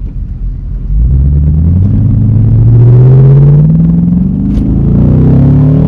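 Chevrolet Camaro SS's L99 6.2-litre V8, muffler deleted with resonators kept, accelerating hard. The exhaust note climbs in pitch from about a second in, dips briefly about four seconds in, then climbs again.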